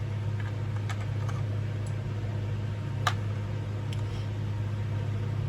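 A few scattered light clicks and ticks of small metal fan hardware being handled, the sharpest about three seconds in, over a steady low hum.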